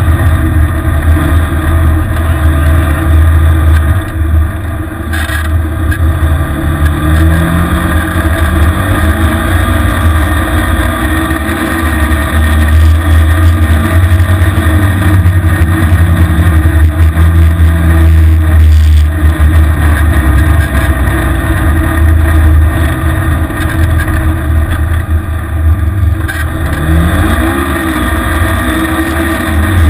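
Vehicle engine revving up and down as it is driven through deep snow, under heavy wind rumble on the camera's microphone.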